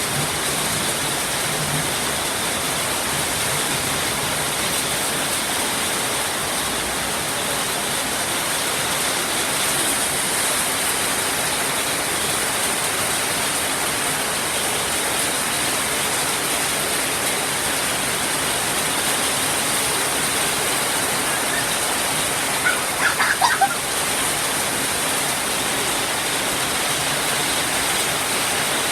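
Steady rain falling, an even hiss. About two-thirds of the way through, a brief run of short high-pitched calls sounds over it.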